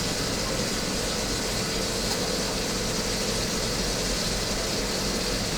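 A steady mechanical hum under an even hiss.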